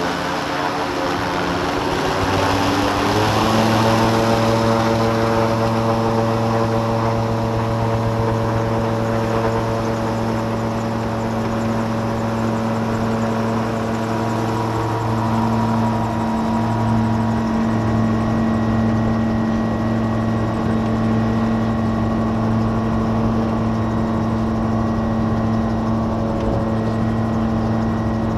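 Light aircraft's piston engine and propeller heard from inside the cockpit. It rises in pitch over a couple of seconds as the throttle is opened for the takeoff roll, then runs steadily at full power.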